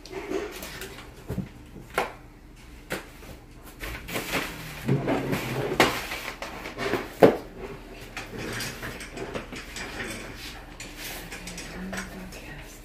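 Irregular clicks, knocks and rustling of things being handled, with the loudest knock about seven seconds in.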